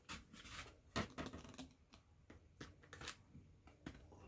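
Near silence with a few faint, short clicks and light rustles of takeout food containers and utensils being handled during a meal.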